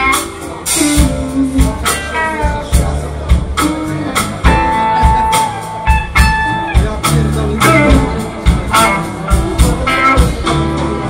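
Live band playing a slow blues, with electric guitar lines over bass and a regular drum beat.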